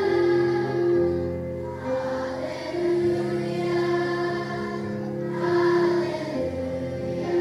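Choir singing a slow piece in long held notes, with short breaks between phrases.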